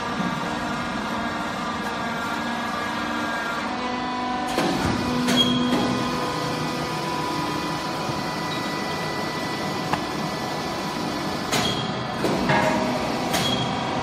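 Household waste baler running with a steady mechanical hum from its motor, while its press plate works down on the load. Sharp clunks come about five seconds in and again several times near the end.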